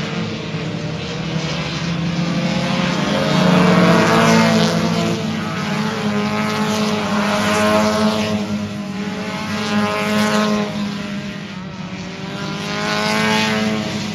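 V6 stock cars racing around a paved oval, their engines swelling and fading as cars pass about four times.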